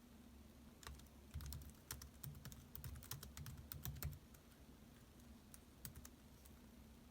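Laptop keyboard typing, faint: a quick run of keystrokes for about three seconds starting about a second in, then a few scattered key presses, over a faint steady low hum.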